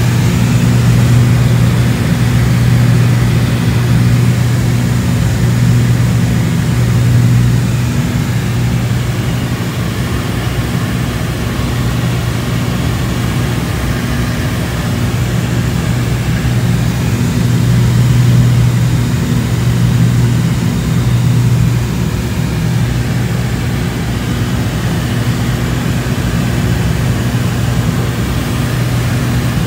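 Twin piston engines and propellers of a Cessna 402C droning steadily, heard inside the cabin in flight. The turbocharged six-cylinder Continental engines give a deep, even hum that swells and eases slowly every few seconds.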